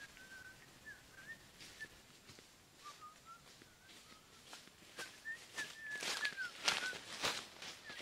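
Footsteps crunching and rustling through leafy undergrowth, starting about halfway and growing louder near the end, over short repeated whistle-like chirps that slide slightly up and down in pitch.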